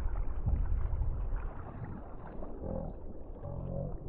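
Wind rumbling on the microphone and water lapping against a kayak in shallow water. A man's low drawn-out voice starts near the end.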